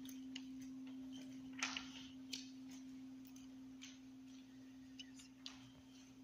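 A single low bell tone, struck just after the name of the departed is read, rings on with one steady pitch and slowly fades, marking the name in a remembrance candle lighting. Soft footsteps and small knocks sound over it.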